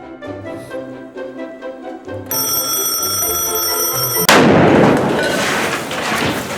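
Background music, then an alarm clock starts sounding a steady high electronic tone about two seconds in. About two seconds later it is cut off by a loud explosion from the alarm's blast charge, which fades over the next two seconds.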